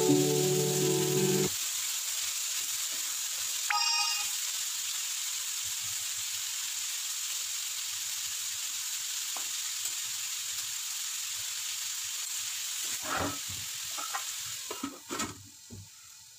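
Pumpkin pieces sizzling in hot oil in a kadai, stirred with a wooden spatula: a steady frying hiss. Several knocks come near the end, and then the sizzle quietens.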